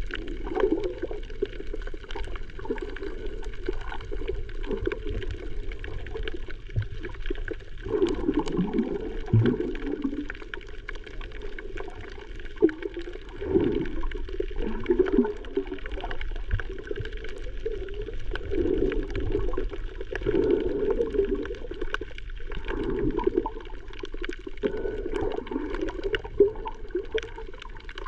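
Muffled sea water gurgling and sloshing around the camera's microphone, rising and falling in uneven swells every few seconds.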